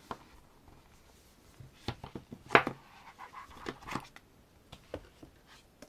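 Soft handling noises of album packaging and photobook being moved about on a desk: a few light knocks and rustles, the loudest about two and a half seconds in.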